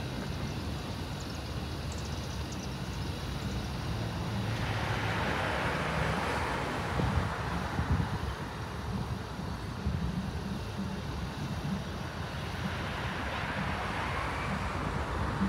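Cars passing on the road, their tyre noise swelling and fading twice, over a steady low rumble with wind on the microphone.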